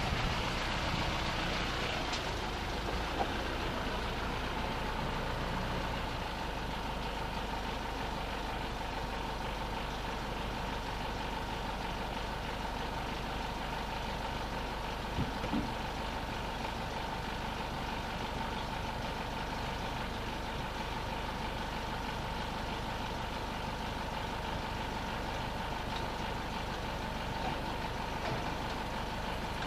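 Mitsubishi Pajero's engine running steadily at low revs, with a faint steady whine joining in about five seconds in.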